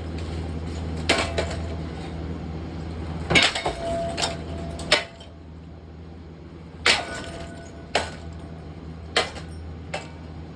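A Harbor Breeze Barnstaple Bay ceiling fan being struck again and again, about ten sharp cracks and clanks at uneven gaps, some with a brief ring. A steady low hum runs under the first blows and stops about five seconds in.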